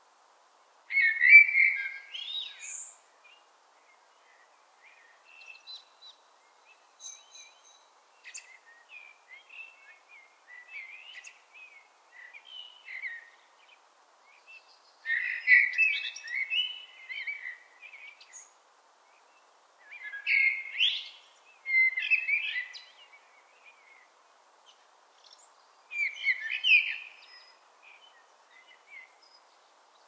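Common blackbird singing: fluty, warbling song phrases, each a couple of seconds long, with loud ones about a second in, a third of the way through, two-thirds through and near the end. Fainter, more distant birdsong fills the gaps between them.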